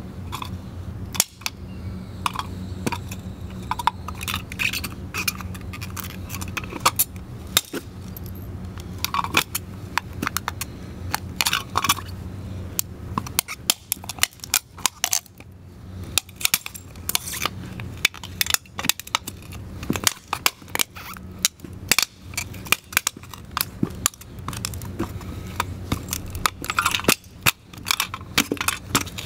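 Combat boots stomping and grinding an old wall sconce on concrete, its ceramic and metal parts cracking and snapping in many sharp, irregular crunches as it breaks apart.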